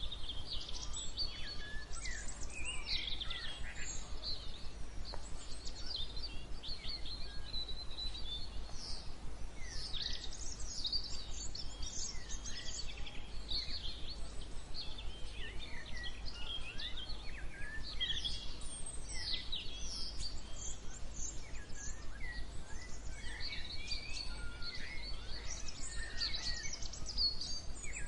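Several songbirds chirping and singing at once, short overlapping calls and trills throughout, over a steady low hum.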